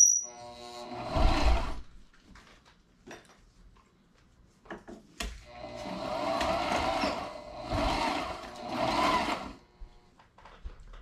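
Portable sewing machine stitching a fabric cushion cover in bursts: a short run about a second in, then a longer run of several seconds from about the middle, stopping briefly twice. A sharp, high squeak-like click right at the start is the loudest moment.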